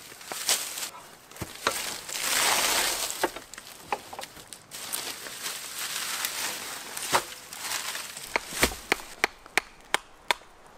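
Dry thatching reed rustling and swishing as bundles are handled. In the second half comes a quick run of sharp wooden knocks, about three a second, from a billhook chopping and splitting hazel rods for thatching spars (scallops).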